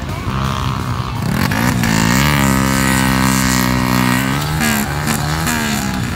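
Dirt bike engine revving: the pitch climbs about a second and a half in, holds high and steady for about two seconds, then dips and wavers up and down as the throttle is worked.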